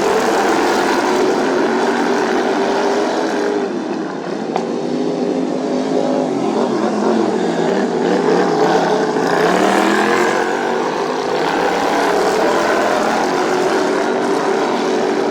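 Several racing lawnmower engines running hard at once, their pitches rising and falling as they rev and ease off.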